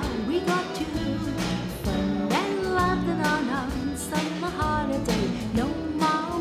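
Pop band music: a woman singing over electric guitar and a drum kit with a steady beat.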